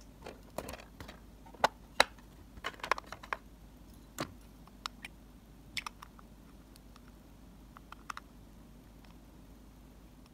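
Light clicks and taps of miniature toy kitchenware being handled: a tiny cupboard door and a small pot and its lid knocking together. The clicks come in a quick cluster over the first few seconds, then grow sparser.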